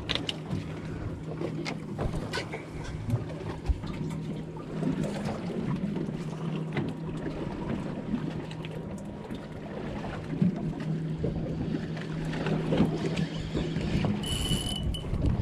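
Outboard motor idling on a boat, a steady low hum under wind and water noise, with rod and reel handling sounds.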